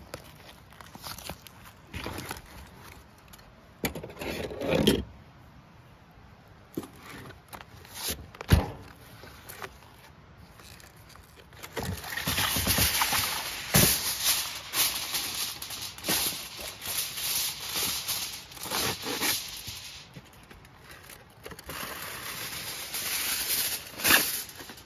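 Aluminium foil being pulled off the roll, torn and crinkled as it is spread out, a dense crackling rustle from about halfway through with short pauses. Before it come scattered knocks and light rustles of a plastic-wrapped meat package being handled.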